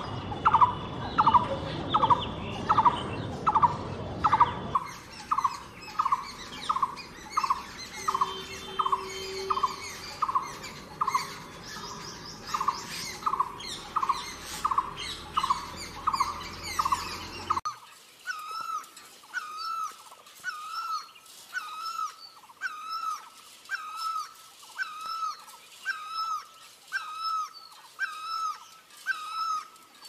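Blue-throated barbet calling: one loud note repeated over and over, about twice a second, without a break. A little past halfway the recording changes, and a slightly higher, up-hooked note repeats a bit more slowly.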